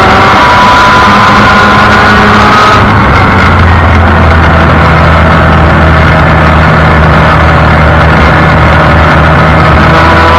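Formula Mazda race car's rotary engine heard from the cockpit at speed under heavy wind rush. About three seconds in the engine eases off and holds a steady lower note for most of the rest.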